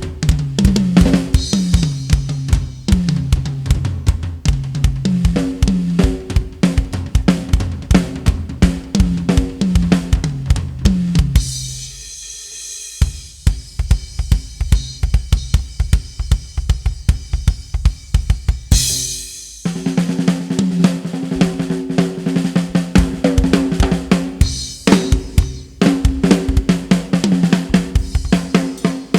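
Music with a driving drum-kit beat and a repeating bass line. About twelve seconds in the bass line drops out for some seven seconds while the beat carries on more thinly, ending in a cymbal swell before the full beat comes back.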